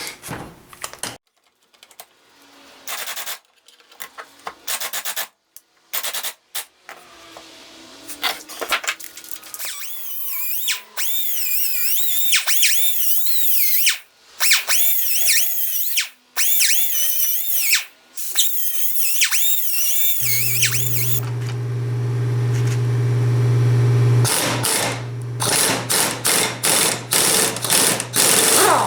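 Metal workshop handling: scattered knocks and scraping with some high squeaks, then about twenty seconds in an electric power tool motor starts and runs steadily. In its last few seconds the run is broken by repeated bursts of harsh contact noise, as from a tool working against the metal.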